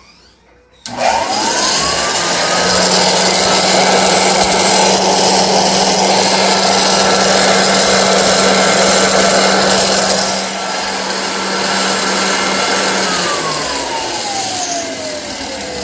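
1923 GE Premier Junior vacuum cleaner switched on about a second in: its motor whine rises quickly, then runs loud and steady, and near the end it is switched off and the whine falls as the motor coasts down. The run is noisy from worn, poorly lubricated bearings in the brush roll.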